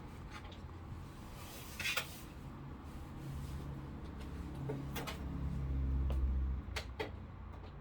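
Handling noises while working on a Midea air conditioner: scattered sharp clicks and knocks, a brief scraping rustle about two seconds in, over a low rumble that swells through the middle and drops off near the end.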